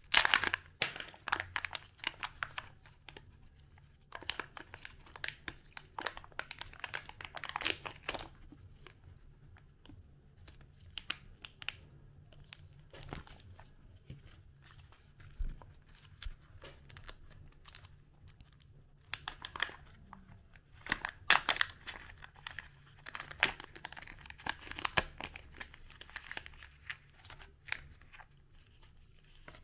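A Kinder Surprise egg being unwrapped by hand. Its foil wrapper crinkles and tears in irregular bursts, loudest near the start. Later, the plastic toy capsule clicks and its paper insert and small plastic bag rustle.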